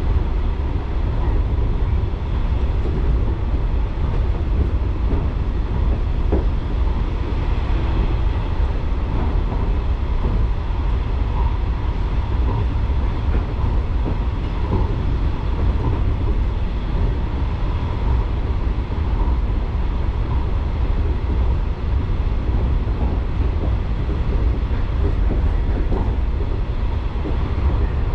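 Local electric train running along the line, heard from inside the car: a steady, continuous low rumble of wheels on rail with faint occasional clicks.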